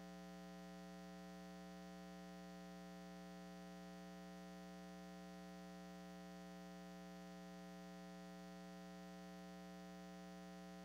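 Near silence apart from a steady electrical mains hum that does not change.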